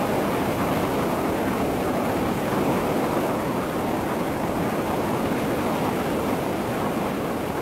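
Steady wind and road noise of travelling at highway speed, an even rush with no distinct engine tone.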